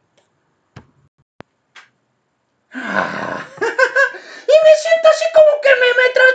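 A man's voice, voicing an old-man puppet, making wordless vocal sounds. It starts about two and a half seconds in with a breathy rush, then goes into long, held tones.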